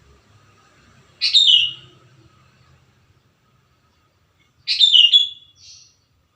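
Sooty-headed bulbul (kutilang) singing: two short phrases of falling whistled notes, about a second in and again near five seconds in.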